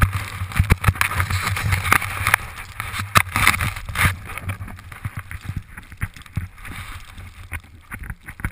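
Snowboard sliding and carving through fresh powder snow, a continuous hiss and scrape with a low rumble and frequent sharp knocks; it is louder in the first half and eases off after a few seconds.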